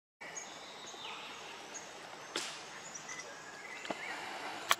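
Outdoor ambience with small birds chirping now and then over a steady hiss, after a brief dropout at the start. A sharp click sounds about halfway through, and a louder one comes just before the end.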